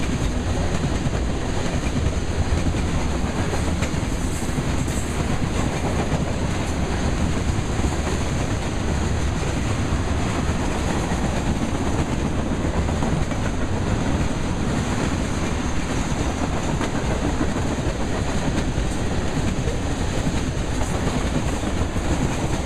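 Freight train's tank cars and covered hoppers rolling past at close range: a steady rumble of steel wheels running on the rails.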